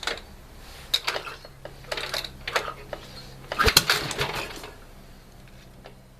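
A run of sharp metallic clicks and clanks in four loose groups, the loudest cluster a little past halfway, over a faint low steady hum; no engine is running.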